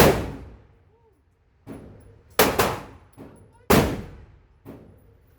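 Shots from a Canik TP9 Elite SC 9mm pistol: a loud shot at the start, two in quick succession about two and a half seconds in, and another a second later, each with a short echoing tail. Fainter reports fall in between.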